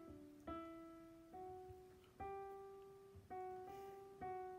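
Soft instrumental background music: slow single notes, about one a second, each struck and fading away.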